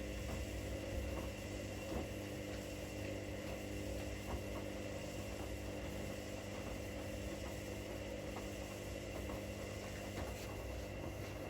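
Two front-loading washing machines running a wash cycle together: a steady motor hum with a few faint clicks.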